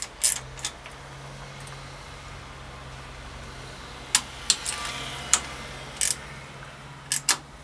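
Scattered light clicks and taps of hands handling the mudguard bridge bolt and plastic mudguard at a bicycle's rear brake bridge, over a steady low hum.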